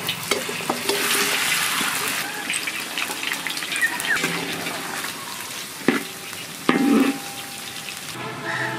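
Marinated chicken pieces going into hot refined oil in a wok and deep-frying: a loud sizzle that swells as the meat goes in, then settles to a steady frying hiss. Two loud knocks come a little past the middle.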